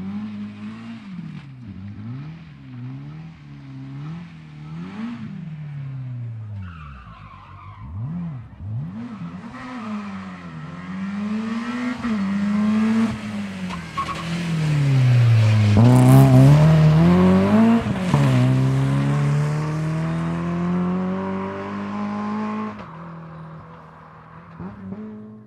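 Rally car engines revving hard through the gears, the pitch climbing and dropping back at each shift. The sound grows loudest about two-thirds of the way in as a car passes close, then holds a steadier pitch and fades as a car pulls away.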